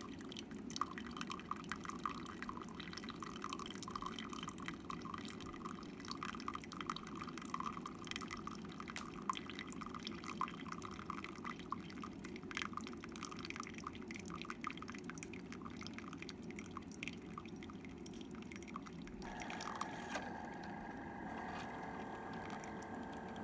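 Single-serve pod coffee maker (Instant Solo) dispensing brewed coffee into a cup: a steady trickle with a dense patter of drips. About 19 seconds in, the sound turns steadier, with several held tones.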